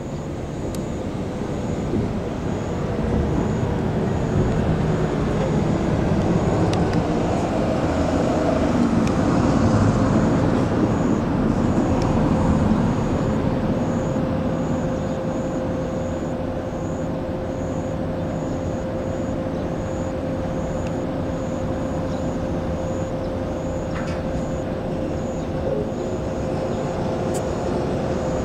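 Road traffic noise: a passing vehicle swells to a peak about ten seconds in and then fades, leaving a steady hum.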